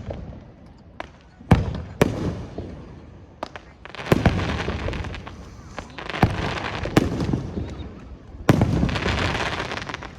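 Aerial fireworks bursting overhead: about eight sharp booms at uneven intervals. Several are followed by a second or so of dense crackling from crackle-effect shells.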